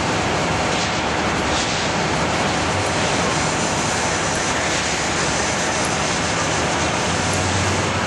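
Fire trucks' engines running steadily, a loud even rumble with a hiss over it and a low hum coming up near the end.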